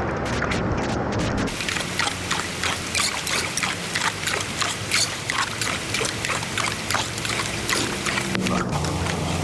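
Floodwater pouring and splashing into a storm drain, with frequent sharp scrapes and clatters of debris being cleared from the grate. A low vehicle engine rumble is heard at the start and cuts off about a second and a half in.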